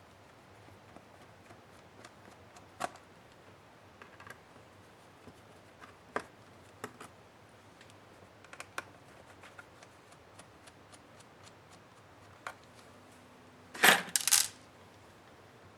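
Scattered light clicks and taps of hand tools working on a laptop's bottom case, with a short, loud clatter of hard parts near the end.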